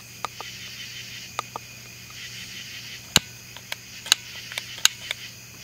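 ThermaCELL repeller's push-button piezo igniter clicking about ten times at an uneven pace, the loudest click about three seconds in, as it is sparked to light the butane pilot. A steady chorus of insects chirps underneath.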